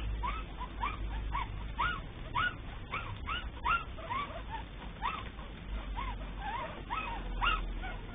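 Squeaks from 17-day-old Cavalier King Charles Spaniel puppies: a steady string of short, high whimpering squeaks, each rising and falling, about two a second.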